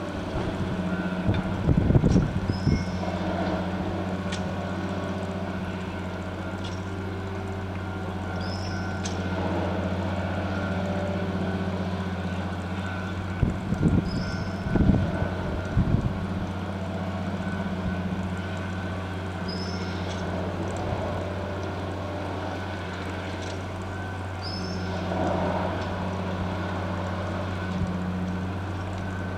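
Diesel engine of a multiple tie tamper running steadily at track work, with a short recurring sound about every five to six seconds as it works along the track. Gusts of wind hit the microphone about two seconds in and again around the middle.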